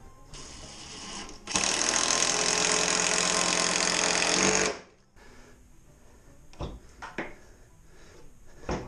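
Cordless drill-driver running in a short burst, then steadily for about three seconds, driving the set screw of a Kee Klamp pipe fitting tight on a steel tube. A few light knocks follow near the end.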